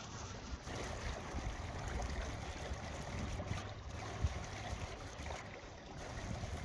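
Wind rumbling on the microphone over a choppy pond, with small waves lapping. There is one brief knock a little after four seconds in.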